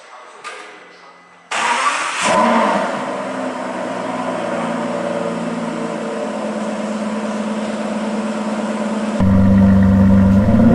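Aston Martin engine started with the crystal key: it fires about a second and a half in, flares briefly, then settles into a steady idle. Near the end a louder, deeper engine note cuts in abruptly.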